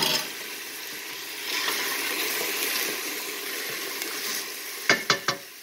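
Mirepoix of chopped carrot, celery and onion sizzling in olive oil in a stainless steel pot, being stirred, with four quick sharp knocks about five seconds in.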